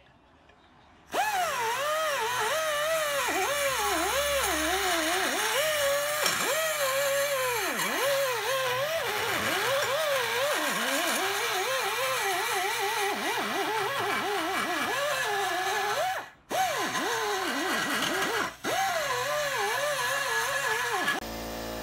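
Pneumatic die grinder porting an aluminium small-engine cylinder head: a steady high whine whose pitch keeps sagging and recovering as the bit bites into the metal. It stops for a moment twice near the end.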